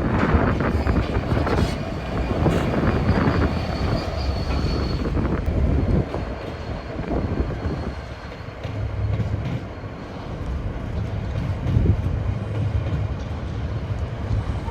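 A train running past on the rails with a steady rumble, and a faint high wheel squeal for a few seconds early on.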